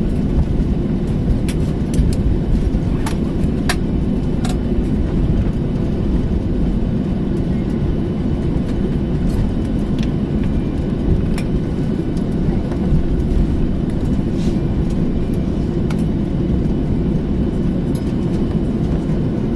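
Steady low rumble inside the cabin of a Boeing jet airliner taxiing after landing, with a few faint clicks or rattles now and then.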